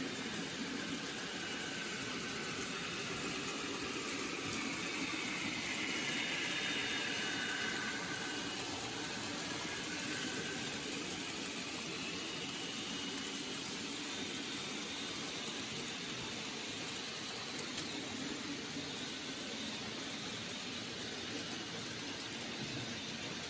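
N gauge model train running on the layout: a steady hiss of motor and wheels on the track, with a higher whine that swells and fades as it passes, loudest about six to eight seconds in.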